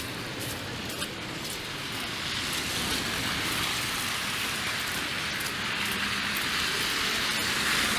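Steady wet hiss of a slushy city street in light freezing rain, growing louder about two seconds in.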